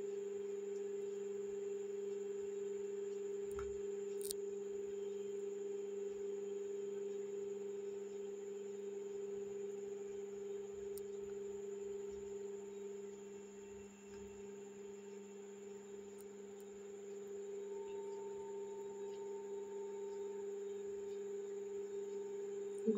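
Steady electrical hum: a low tone with a stronger one an octave above it, unchanging throughout, with a few faint clicks.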